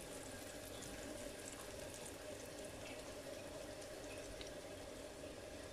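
Thin batter pouring from a bowl into a frying pan of peppers in hot oil, with a faint steady sizzle and a few small crackles.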